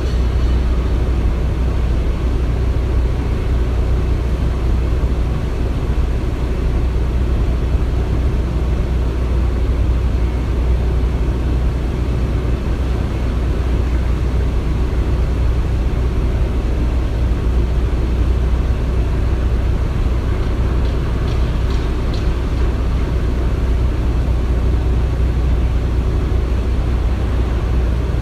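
Construction-site machinery running with a steady, low rumble. A few faint, brief ticks come about twenty-one seconds in.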